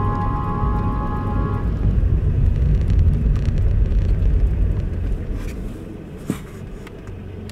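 Car driving, heard from inside the cabin: a steady low engine and road rumble that grows quieter as the car slows, with a sharp click about six seconds in. Held music tones fade out about two seconds in.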